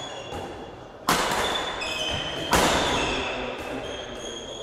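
Two loud, sharp bangs about a second and a half apart, each echoing through a large sports hall, with short high squeaks of shoes on the court floor around them.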